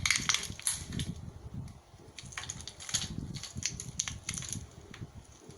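Irregular crackling and crunching: a run of sharp cracks at uneven intervals over a low rumble.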